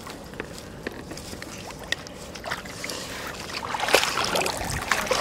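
Shallow rice-field water sloshing and splashing, with scattered small sharp clicks. It gets louder and busier about four seconds in.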